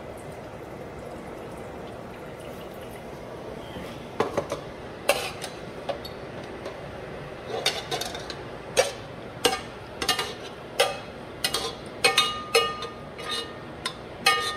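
A string of sharp metallic clanks and clinks, some briefly ringing, starting about four seconds in: a metal spoon knocking against a cooking pot as cooked elbow macaroni is scraped out of it into a foil pan. Before the clanks, only a steady low kitchen hiss.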